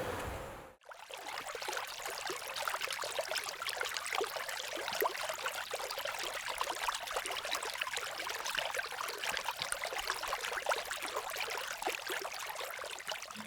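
Water trickling and babbling in a small stream, a steady splashy hiss with many small irregular drips, starting after a brief gap about a second in.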